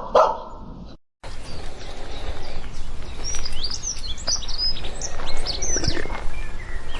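A dog barks once at the start. After an abrupt cut, there is steady outdoor noise with birds chirping in quick, high, sweeping calls, busiest in the middle.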